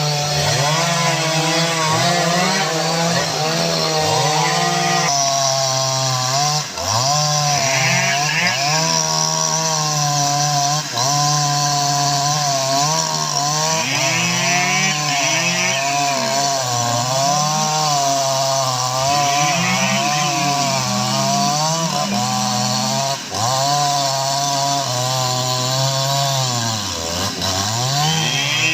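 Jonsered 2095 Turbo chainsaw's 93.6 cc two-stroke engine running at high revs while cutting into teak. Its pitch sags and recovers again and again as the chain loads up, and near the end it bogs down deeply before picking back up.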